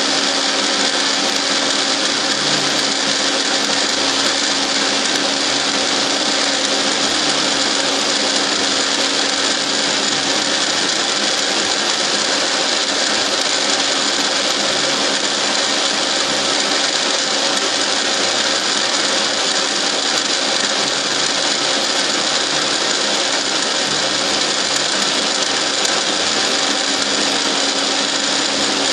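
Milling machine running steadily while its cutter mills a helical groove in a metal workpiece, the table hand-fed so the geared dividing head turns the work. Constant machine hum and whir with a dense cutting hiss and no breaks.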